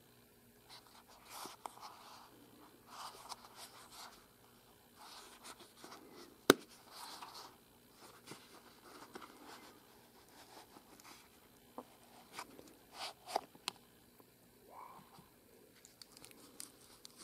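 Hands handling a leather watch pouch: rubbing and rustling of the pouch, with one sharp click about six seconds in as its snap button pops open, and a few lighter clicks later.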